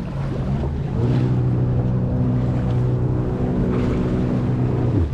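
Jet ski engine running steadily, growing louder about a second in and dropping in pitch near the end as the throttle eases off, with wind and water noise behind it.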